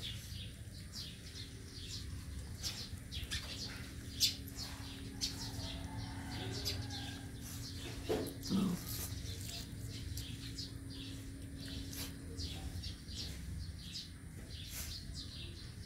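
Small birds chirping in short, repeated high chirps over a steady low hum, with one brief lower cry a little past halfway.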